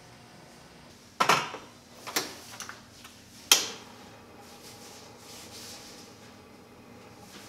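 Stainless-steel pot and lid being handled: three metallic clanks about a second apart, each ringing briefly, the last one the sharpest and loudest.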